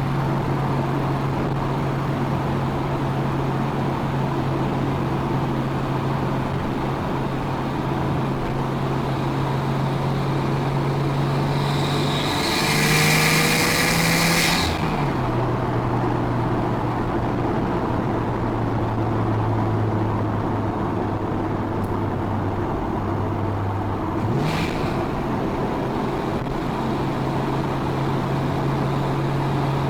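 Nissan Skyline R34 GT-T's turbocharged straight-six through a full exhaust, running at steady revs on the move. About halfway through it gets louder with a hiss over it for a couple of seconds, then the engine note drops to lower revs; near the end a quick rise in revs with a short hiss, before it settles back to a steady note.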